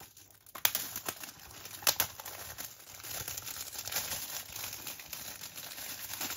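Card slipcover being slid off a plastic Blu-ray keep case: a few sharp clicks and taps of handling in the first two seconds, then a steady rubbing rustle of card against plastic.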